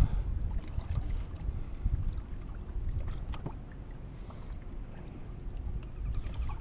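Low wind rumble on the microphone aboard a small fishing boat, with a few faint knocks and clicks.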